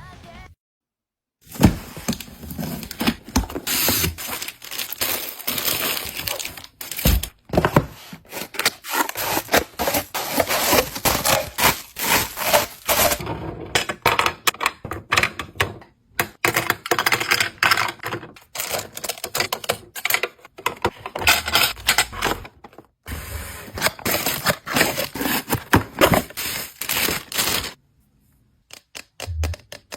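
Paper blind bags being handled and opened: dense crinkling and crackling of paper with quick taps and scrapes, broken by a few short pauses.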